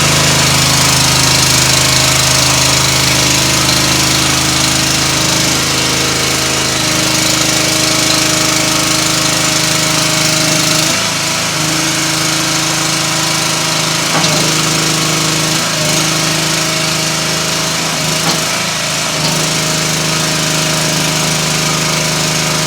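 Engine of a rubber-tracked mini skid loader running steadily. Its note dips briefly several times in the second half.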